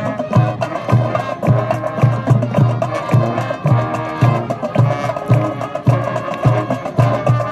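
Marching band playing: a steady drum beat of about two and a half hits a second under held brass chords.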